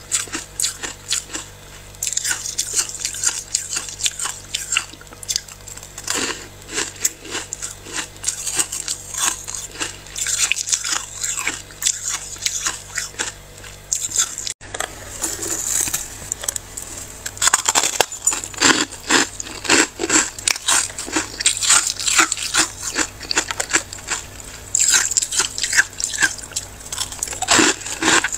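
Freezer frost crunching under scraping: a dense, continuous run of sharp crackly scratches. There is a sudden break about halfway through, after which the crunching comes back louder and fuller.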